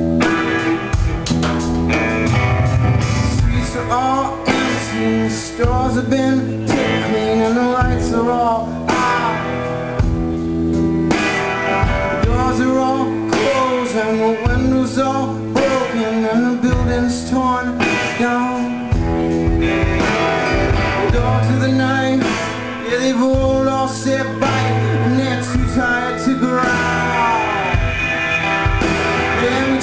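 Live band playing a blues-rock song: electric guitars, drums and keyboard, with a lead line that bends up and down in pitch.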